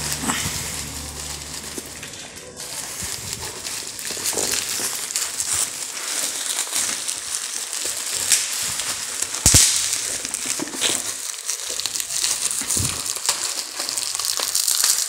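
Plastic mailer bag and bubble wrap crinkling and rustling as hands tear a package open and pull out a cardboard box, with one sharp crack about two-thirds of the way through.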